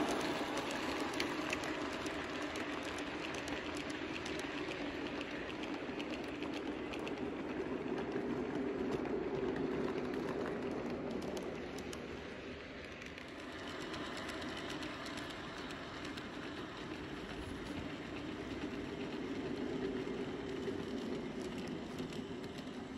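G-scale model train rolling past on outdoor track: a steady rumble of wheels on rail with scattered light clicks, dipping briefly about halfway through before the next train passes.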